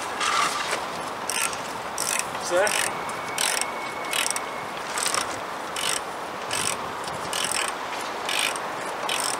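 Ratchet spanner clicking in short bursts about once a second, working a 22 mm bolt on an engine mount.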